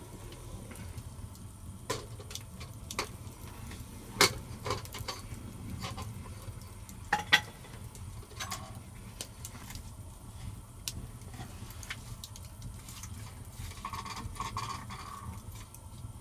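Wood fire crackling in a stone hearth, with scattered clicks throughout. A small metal teapot is handled and set beside the flames, giving sharp knocks about 4 and 7 seconds in.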